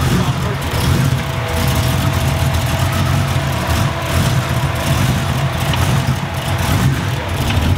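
Twin-turbo 2004 Mustang GT's built two-valve V8 running steadily at idle, with no revving.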